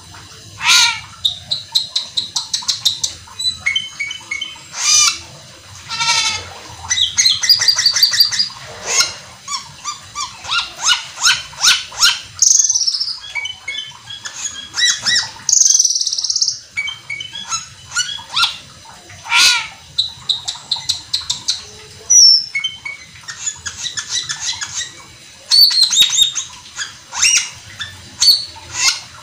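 An Asian glossy starling (cucak keling) singing without pause: fast runs of short squeaky chirps and sweeping whistles, broken by a few louder harsh rasping notes near the middle.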